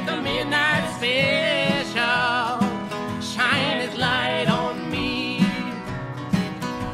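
Acoustic country-folk string band music: acoustic guitars playing a passage between sung verses, with a bending lead melody over the strummed rhythm.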